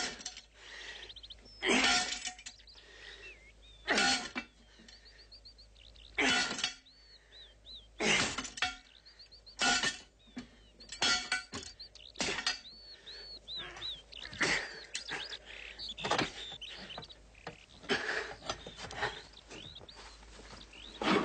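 Heavy blows of an axe hacking at a steel safe, struck over and over about every two seconds, each a loud metallic impact. Birds chirp faintly between the blows.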